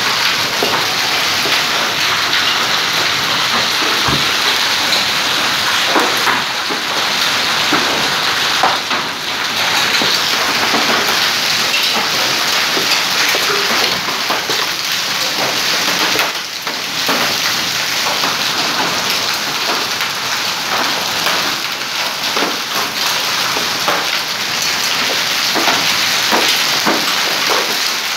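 A hailstorm, hailstones and rain beating down on paving stones in a dense, steady clatter of many small hits.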